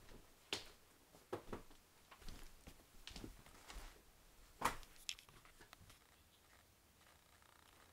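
A few faint, sharp clicks and knocks, irregularly spaced, the loudest a little under five seconds in, then near silence. No vacuum motor is running.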